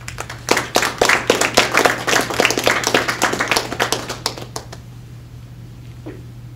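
Audience applauding with many separate hand claps. The applause starts at once, then thins out and stops after about four and a half seconds.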